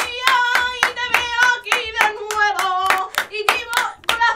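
Hands clapping a fast, even rhythm, about five claps a second, under a voice singing a long, wavering melodic line.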